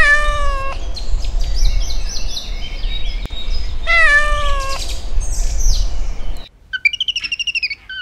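Persian cat meowing twice, two long, slightly falling meows about four seconds apart, with small birds chirping and a low rumble behind. Near the end the meows give way to a fast, high-pitched trill.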